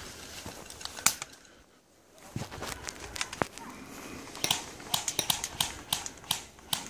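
Airsoft guns firing: a single sharp shot about a second in, a few scattered shots, then a quick irregular run of shots, about four a second, from about halfway through.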